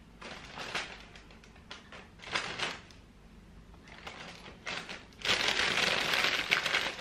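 Brown paper bag rustling in short bursts as bread rolls are put back into it. It then crinkles steadily and more loudly for the last two seconds as the bag is folded shut.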